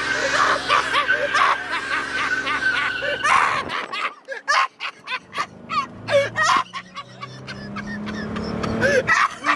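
Several people laughing, over music playing.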